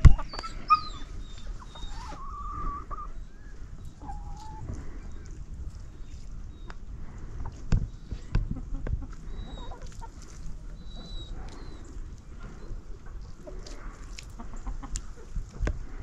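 Hens clucking, with short calls in the first few seconds, over a few scattered knocks.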